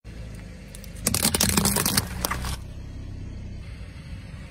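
Car tyre rolling over plastic tubs of slime, cracking and crushing them in a dense run of cracks lasting about a second and a half, over the low rumble of the car's engine.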